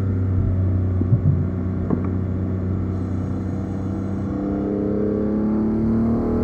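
BMW E46 M3's S54 straight-six running through a Supersprint exhaust. The engine note sags a little, then rises steadily under acceleration from about three seconds in. A few short knocks come early on.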